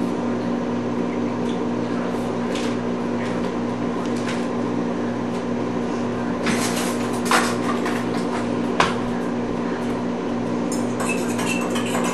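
A steady electrical hum runs throughout. Over it come a few light knocks and clinks of kitchen things on the table and a steel bowl, the sharpest about seven and a half and nine seconds in, with a run of small clicks near the end.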